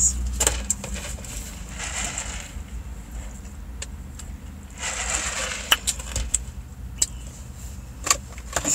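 Handling noises inside a car: sharp clicks and rustles from a plastic drink cup and food containers, with two short hissing stretches, the second about five seconds in, as she sips lemonade through a straw. A steady low hum runs underneath.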